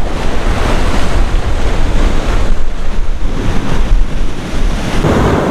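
Sea surf breaking and washing against the shore rocks, with wind buffeting the microphone in a heavy low rumble.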